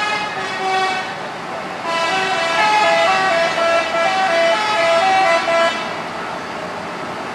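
Telolet multi-tone horn of a Haryanto bus playing a tune: a quick run of stepped notes going up and down, fainter at first, then loud from about two seconds in until it stops about six seconds in.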